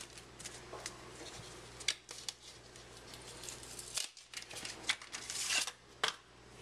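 Hands handling a hard trading-card box and its cellophane shrink wrap: scattered clicks and taps, with a short burst of plastic crinkling about five seconds in.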